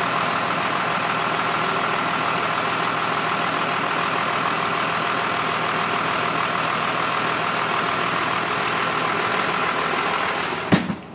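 School bus engine idling steadily, heard close through the open engine cover inside the bus. Near the end it dies with a short clunk, stopped by hand at the engine because the shutoff cable has broken.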